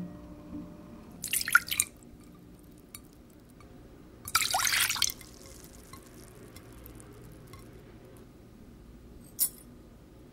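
Liquids poured from small glass bowls into a stainless steel saucepan: a short splashing pour about a second in (water) and a second pour of under a second around four seconds in (milk), then a brief patter of salt dropping into the liquid near the end.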